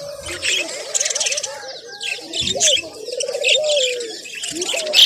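Caged birds calling together: rapid high chirps and chatter over a lower, rolling, cooing warble that comes back several times and glides down in pitch near the end.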